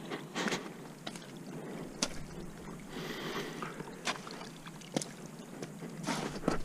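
Footsteps squelching through wet slush and snow, a short wet crunch roughly every second.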